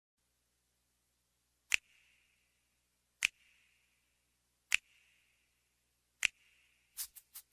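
Four sharp percussion clicks, evenly spaced about a second and a half apart, each with a short ring, then a quick rhythmic run of clicks near the end as a song's percussion intro gets going.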